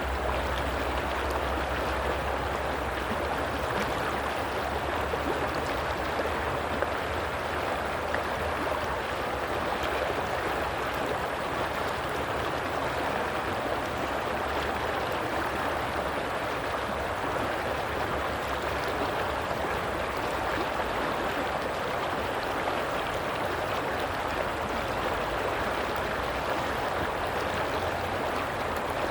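Running water of a stream, an even rushing and gurgling flow without a break.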